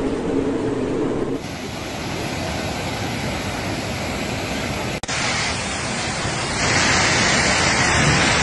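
Steady rushing noise of fast floodwater with wind buffeting the phone microphone, broken by two abrupt cuts, about a second in and about five seconds in; it grows louder near the end.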